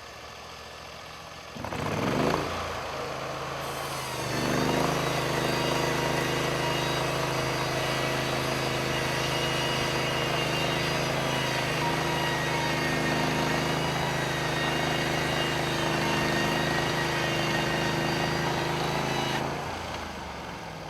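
Norwood LumberMate Pro MX34 portable band sawmill throttling up with a rising whine about two seconds in. It then runs steadily under load for about fifteen seconds, the engine and band blade cutting through a log, and winds down near the end as the control is released.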